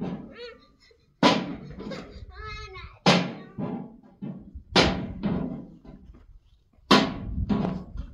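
Background music with a slow, heavy drum beat, one loud strike about every two seconds.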